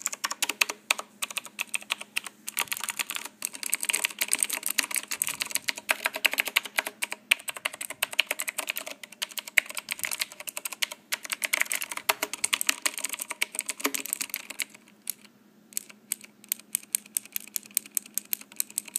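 Typing on a Rosewill RK-9000 mechanical keyboard with Cherry MX Blue switches: fast, dense clicking of the tactile, clicky keys, slowing to single separate key presses after about fifteen seconds.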